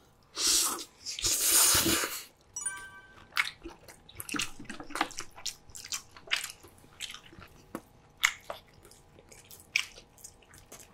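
Two people slurping spicy cold noodles, loud for the first two seconds, then wet chewing with many short clicks and lip smacks as they eat noodles and roasted pork belly.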